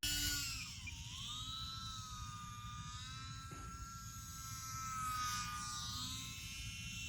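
Electric motor and propeller whine of an E-flite UMX Yak 54 180 micro RC plane in flight. The pitch dips about a second in as the throttle comes back, then rises again, and the sound grows a little louder around five seconds in.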